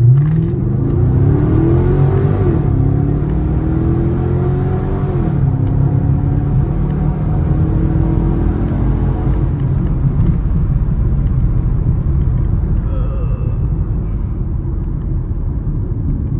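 Chevy car with a muffler-deleted exhaust accelerating hard. The engine note climbs through one gear, drops at a shift about 2.5 s in, climbs again, shifts again about 5 s in, then settles into a steady loud rumble while cruising.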